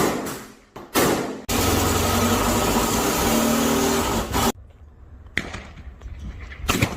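Two SKS rifle shots about a second apart, each a sharp crack that dies away quickly. They are followed by about three seconds of loud, steady rushing noise with a low hum, which cuts off suddenly.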